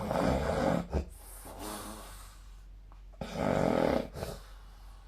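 A sleeping person snoring. There are two loud snores about three seconds apart, with a softer breath between them.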